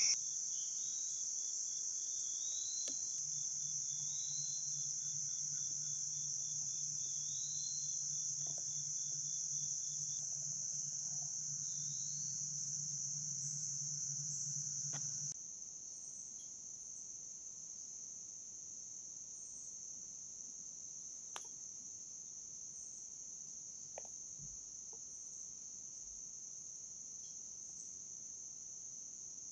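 Steady high-pitched trilling chorus of crickets and other insects in the woods, with a faint low pulsing hum beneath it for the first half. The chorus becomes quieter about halfway through.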